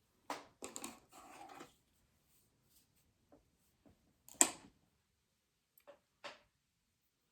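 Hard plastic handling sounds from hair styling: a brief rustle and clatter under a second in, then a sharp click about four and a half seconds in and a softer click near six seconds.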